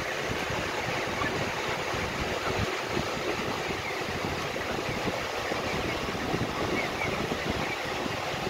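A steady rushing noise with an uneven, fluttering low rumble, typical of wind buffeting the microphone.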